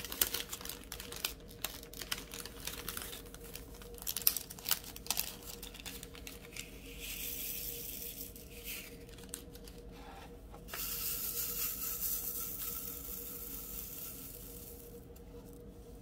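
Clear plastic protective film on a diamond-painting canvas crinkling and rustling as it is handled, with many small sharp clicks in the first few seconds and longer stretches of crackle later.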